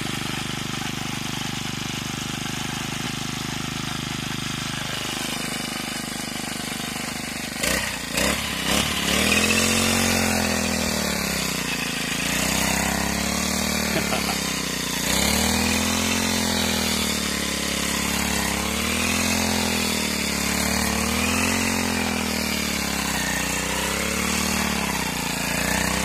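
Brush cutter engine running steady at first, with a few sharp knocks about eight seconds in. It then revs up and down in a rhythm about every two seconds as the blade swings through standing fodder crop.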